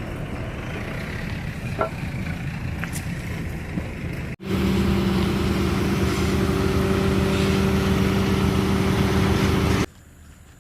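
Heavy diesel machinery engine running. About four seconds in it jumps to a louder, steady drone with a constant pitch, which cuts off abruptly near the end.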